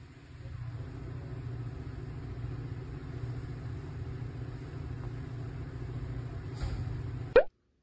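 A steady low mechanical hum, with a brief loud sweeping sound near the end just before the sound cuts off suddenly.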